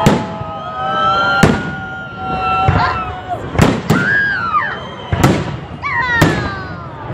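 Fireworks display going off: about six sharp bangs, roughly one every second or so, with high whistling tones held and gliding between them.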